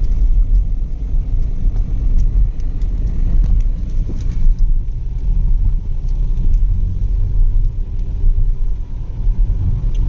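Steady low rumble of a car driving at speed on a highway, its road and engine noise heard from inside the cabin.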